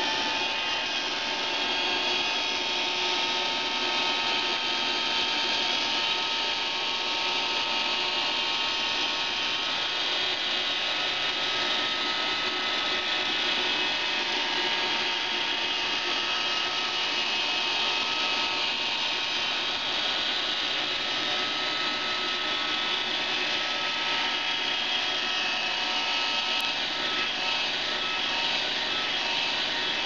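iRobot Roomba 530 robot vacuum running on carpet: a steady whir of its motors with a thin whine over it.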